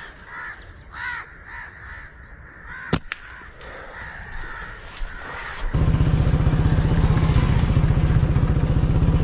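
Crows cawing repeatedly, with a sharp click about three seconds in. Near six seconds in, a loud motorcycle engine starts up close by and keeps running with a fast, even throb; this is the loudest sound.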